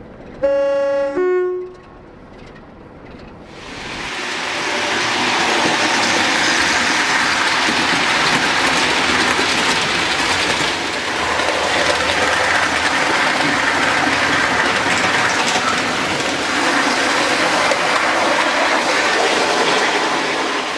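A two-tone train horn sounds once, a higher note then a lower one. A couple of seconds later the steady running noise of a train builds up and carries on, loud and even.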